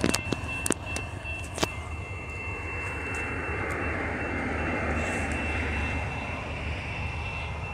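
Distant approaching diesel freight train: a steady low rumble, with a broad whooshing swell building through the middle. A few sharp clicks come in the first two seconds.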